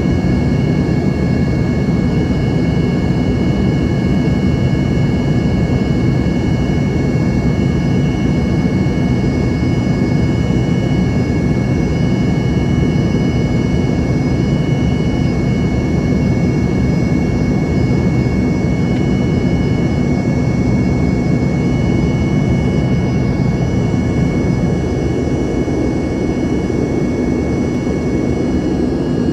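Embraer ERJ-145's Rolls-Royce AE3007 turbofans running steadily, heard inside the cabin: a steady rushing roar with several high, steady whining tones over it. The level dips slightly near the end.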